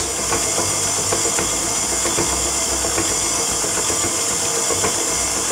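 Electric stand mixer running steadily, its flat beater turning through thick cookie dough in a stainless steel bowl.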